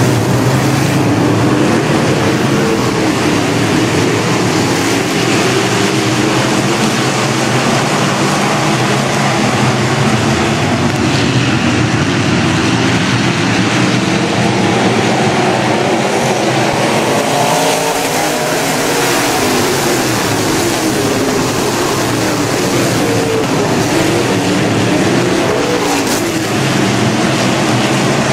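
A pack of B-Mod dirt-track race cars running hard around the oval, their V8 engines loud and continuous, with several engine notes rising and falling as the cars pass through the turns.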